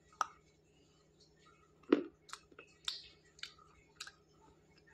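Teeth biting and chewing a hard, oven-dried clay bar: a small crack at the start, a louder snap about two seconds in, then four crisp crunches about half a second apart.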